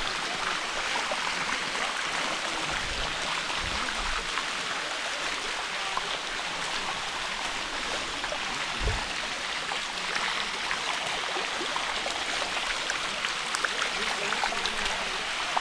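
Water rushing steadily down the rock steps of a waterfall, with a few low thumps.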